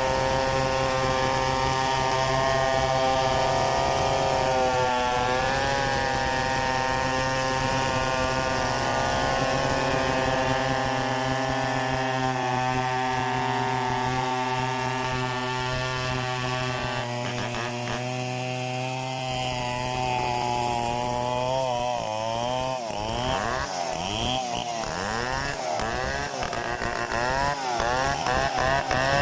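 Two-stroke chainsaw cutting mahogany: the engine runs at a steady pitch under load, then from about three-quarters of the way in its pitch repeatedly swings up and down as the load changes.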